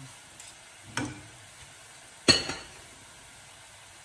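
Hot oil sizzling steadily as strands of besan sev deep-fry in a kadai, with a light click about a second in and a sharp metallic clank just after two seconds, the loudest sound.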